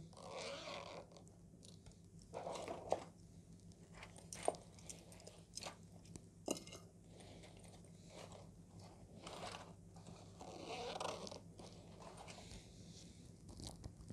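Faint rustling and handling noise as a soft fabric pouch and small trimmer accessories are packed into a zippered hard case, with a few light clicks and taps.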